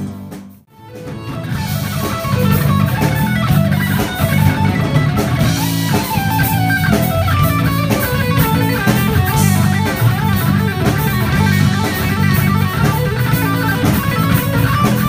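Live rock band: an electric guitar, a Jackson, playing a rock riff over bass guitar and drum kit, heard through a phone's microphone. The music drops out briefly about half a second in, then carries on without a break.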